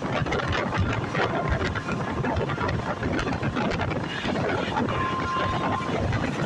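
Passenger train running along the track, a steady rumble full of small clicks and rattles, with wind buffeting the microphone. About five seconds in, a short steady high tone sounds for under a second.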